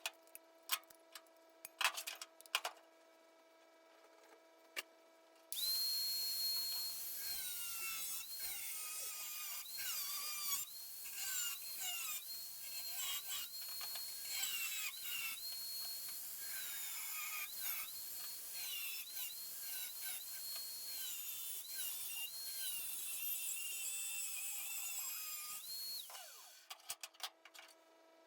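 A high-speed rotary tool whines up to speed about five seconds in and runs for about twenty seconds, its pitch dipping again and again as it bites into the metal, then winds down. There are a few light clicks and taps before and after it.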